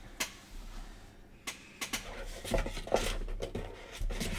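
Light plastic clicks and knocks from a card in a magnetic one-touch holder being handled, a few scattered taps with quiet between them.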